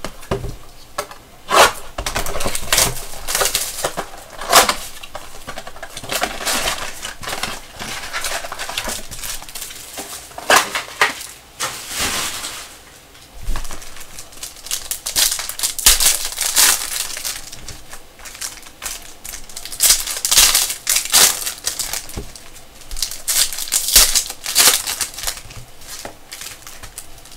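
Foil trading-card pack wrappers crinkling and tearing as packs are handled and ripped open, in irregular crackly bursts.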